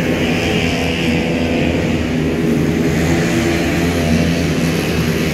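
A loud, steady engine drone that holds an even pitch, with no revving.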